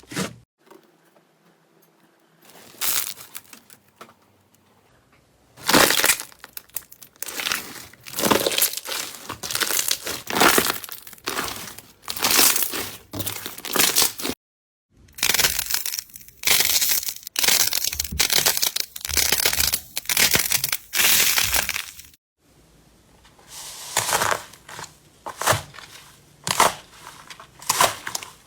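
Slime being squeezed and pressed close to the microphone, giving runs of crunchy, crackling squelches in quick succession. The sound breaks off abruptly a few times between clips.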